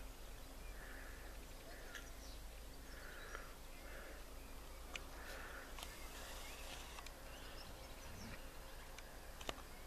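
Faint outdoor background, with the occasional sharp click of footsteps on a stony dirt track.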